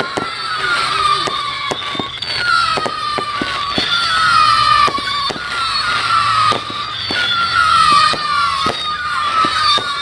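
Fireworks with whistle effects going off: shrill whistles, each sliding slightly down in pitch over about a second, follow one another about once a second, with sharp bangs and pops throughout.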